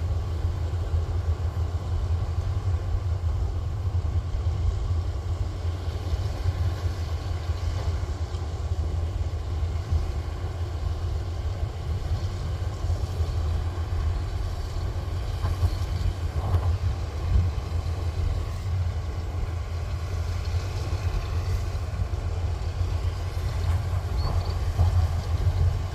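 Kubota rice combine harvester's diesel engine running steadily under load, a deep, even drone.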